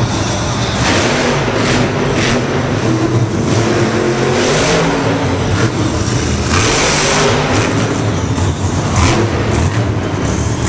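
Monster Mutt monster truck's supercharged big-block V8 running loud, revving hard and surging up and down in pitch as the truck drives over crushed cars.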